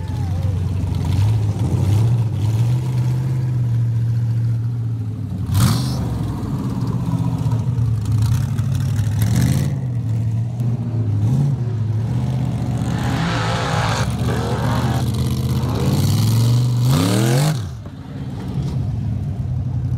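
Off-road race buggy engine running hard and revving up and down as the buggy climbs rocks and takes the course. There are two sharp bangs, one about a third of the way in and one about halfway. Near the end the revs climb fast as the buggy goes over a jump, then drop away.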